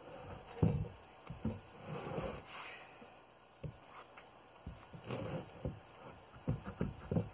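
Wooden framing boards knocking and thudding irregularly as they are handled and fitted together, with a quick run of knocks near the end.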